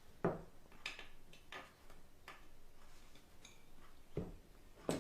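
A series of about seven sharp clicks and taps at irregular intervals, roughly every half second to a second, the loudest one just after the start and another at the very end.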